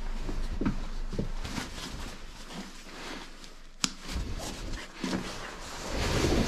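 Shuffling and rustling while shoes are put on by a front door, with a few soft thuds in the first second or so and one sharp click a little before four seconds in.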